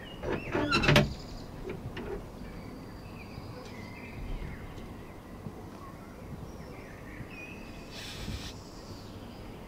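Birds chirping and singing outdoors, with a loud clattering rattle about a second in and a short rustling scrape about eight seconds in as a bike is handled in a wooden shed.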